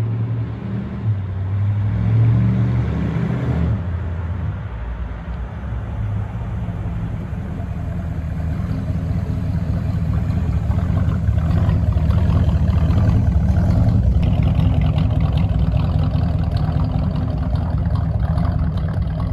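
Ford V8 engine running, a steady low drone whose sound changes about four seconds in and grows louder through the second half before fading out at the end.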